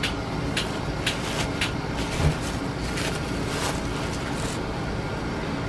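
Thin white wrapping paper rustling and crinkling in short bursts as hands fold it over a packed fish in a box, over a steady background hum.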